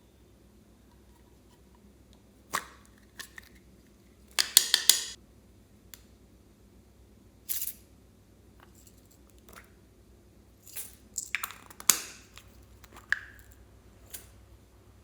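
Slime being worked by hand: scattered short, sticky pops and crackles, with a denser run of crackling about four and a half seconds in and again around eleven to twelve seconds in.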